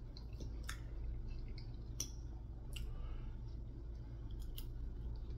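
Eating sounds: a metal fork clicking now and then against a plate, and mouth sounds of taking and chewing soft food, over a steady low hum.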